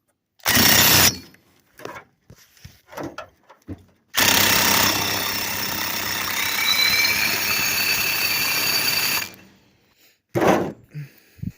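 A power tool runs in a brief burst about half a second in, then continuously for about five seconds from about four seconds in, with a faint high whine over its noise; small clicks of parts being handled come between, and another short burst comes near the end.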